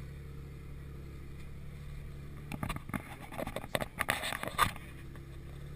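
Tour Jeep's engine running steadily as it drives a dirt trail, with a burst of rattling and knocking from about halfway through to near the end as the vehicle jolts over rough ground.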